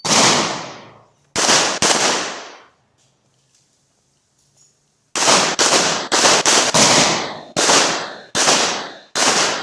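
Gunshots at a shooting range: three shots in the first two seconds, then after a pause of about two and a half seconds a rapid string of about ten shots, several a second. Each shot is loud with a long echoing tail.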